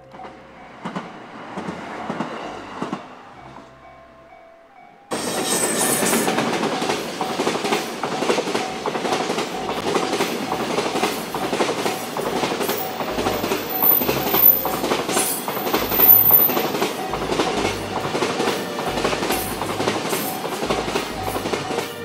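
Japanese level-crossing warning bell ringing in a steady repeating pattern. About five seconds in a container freight train suddenly grows loud, its wagons rumbling and clattering through the crossing, with the bell still ringing under it.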